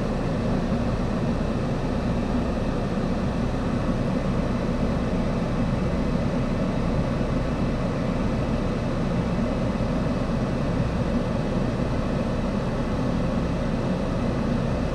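Car engine idling at a standstill: a steady low rumble, heard from inside the cabin.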